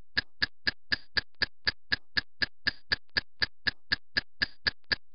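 Rapid, even ticking sound effect, about four sharp ticks a second, over a faint steady hum.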